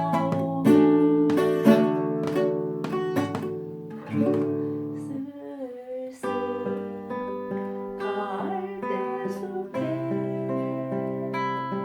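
Acoustic guitar strummed and picked in held chords, dipping briefly about five and a half seconds in before the chords resume.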